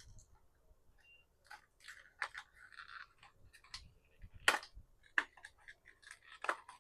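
Stiff plastic packaging being handled and pried at, crinkling with scattered sharp clicks and snaps, the loudest a little over halfway through, while it refuses to open.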